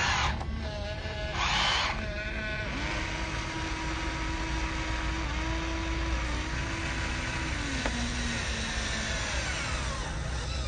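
Small electric motors of radio-controlled toy construction vehicles whining: a short louder burst about a second and a half in, then a steady whine that shifts slightly in pitch and stops about eight seconds in.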